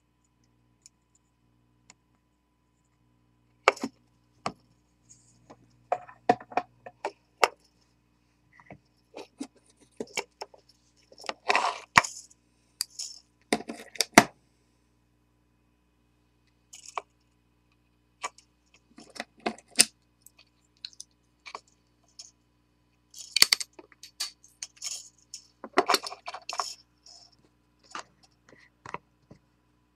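Scattered small clicks, taps and light rattles of hands handling fine tinned wire and a plastic wire spool against a steel bench block, in several short bursts, over a faint low hum.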